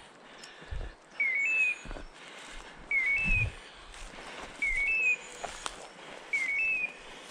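Electronic beeper collar on a hunting dog: four identical short beeps, each a lower note jumping to a higher one, repeating evenly about every 1.7 seconds.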